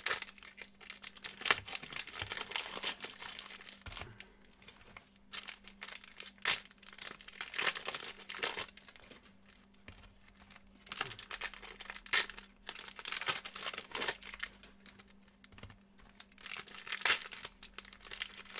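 Packs of 2019-20 Panini Hoops Premium basketball cards being torn open by hand: plastic wrappers crinkling and tearing in irregular spells.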